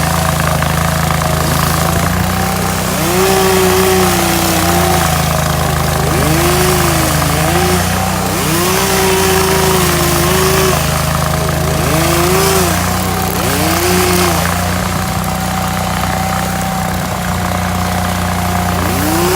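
Hydraulic stump grinder running under load while grinding a stump: a steady engine note with a whine that rises, holds and falls away again every two to three seconds, along with surges of grinding noise.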